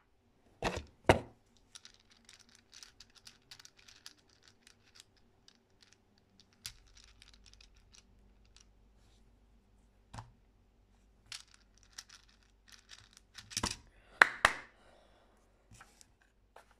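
Clicking of a plastic Twister (Leafy) cylinder puzzle worked by hand: quick small clicks as its rings turn and slide, with louder knocks of hands on the speedcubing timer and table, two about a second in and a dense cluster near the end.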